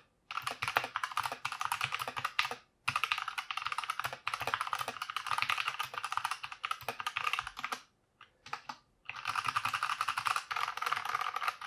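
Fast typing on a Redragon K530 60% mechanical keyboard with Outemu Box Brown switches: rapid keystrokes in runs. The typing breaks off briefly about three seconds in and for about a second near eight seconds in.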